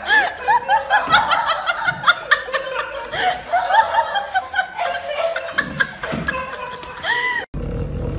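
High-pitched laughter: a quick run of short rising-and-falling giggles. It cuts off abruptly near the end and gives way to a steady low hum.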